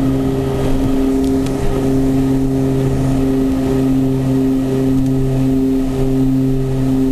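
Twin Garrett turboprop engines and propellers of a Beechcraft King Air B100 droning steadily, heard from inside the cockpit, with a slight regular pulsing in the drone.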